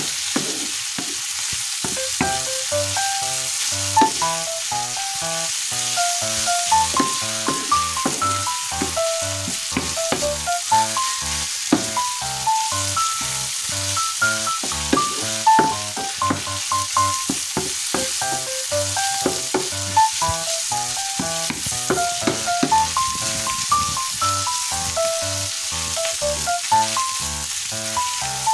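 Beef, green beans and green onions sizzling in a hot frying pan while a wooden spatula stirs them, over background music.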